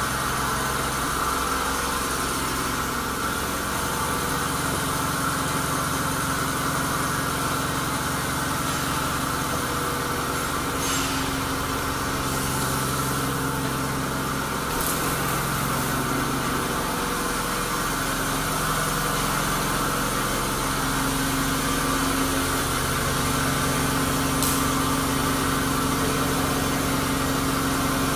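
Doosan DBC-130L-II CNC horizontal boring mill powered on, its motors running with a steady machine hum and a low tone that comes and goes. A few faint clicks sound over the hum.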